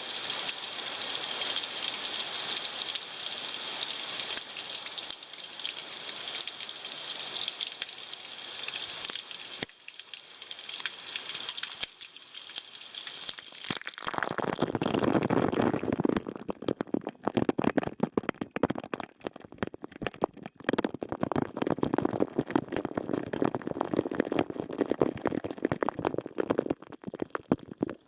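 Small hot-spring waterfall: a steady rush of falling water, then from about halfway a closer, louder splashing full of crackles.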